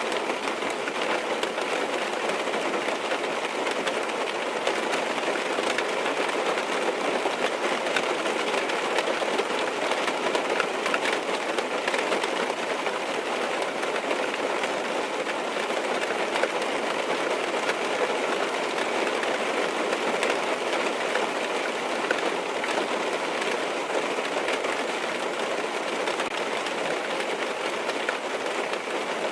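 Steady rain falling on a car's roof and windows, heard from inside the car, with scattered individual drops over an even hiss.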